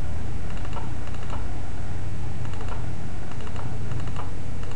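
Computer keyboard keys clicking in quick irregular clusters, over a steady low hum.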